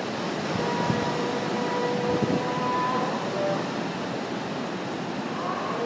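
Ocean surf washing over the rocks: a steady rushing noise of breaking waves. Faint held tones sound through it from about half a second to three and a half seconds in.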